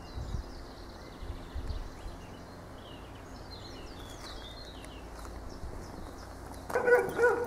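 Outdoor ambience of small birds chirping over a low rumble, then a dog barks loudly several times near the end.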